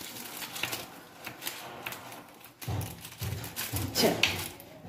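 Knife scoring a tray of freshly set patisa (soan papdi), a run of light scraping clicks as the blade cuts into the flaky sweet, then a few dull knocks about halfway through.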